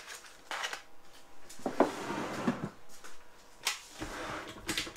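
Kitchen utensils and a metal mixing bowl being handled on a countertop: a string of scattered knocks and clinks, the loudest about two seconds in.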